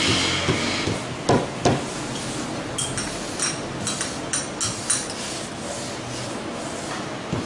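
Wooden rolling pin rolled back and forth over thin dough on a marble slab. There are two louder knocks about a second in, then a quick run of light, ringing clicks.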